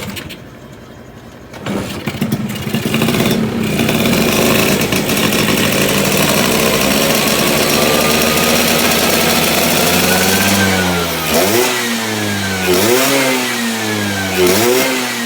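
Tuned Vespa PX two-stroke engine with a PE 28 carburettor, run up while its carburettor jetting is being set. It picks up about a second and a half in, its revs climb slowly and are held high, then drop back and are blipped up three times near the end.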